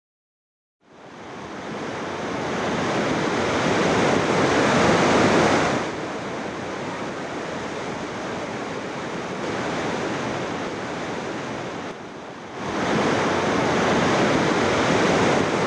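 Rushing roar of a torrent in flood. It fades in and swells over the first few seconds, drops abruptly about six seconds in, runs on steadily, then surges back up near the end.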